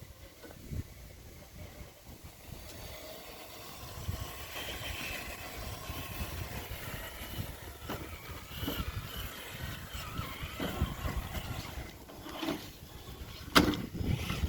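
Electric 6x6 RC crawler driving, its motor and gears giving a faint whine over low rumbling noise, with a few sharp knocks near the end, one of them loud.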